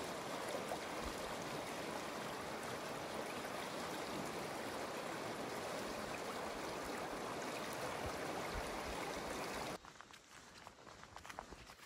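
A fast, shallow river rushing over stones: a steady, even rush of water that cuts off abruptly about ten seconds in. It gives way to quieter, regular footsteps on a dirt forest path.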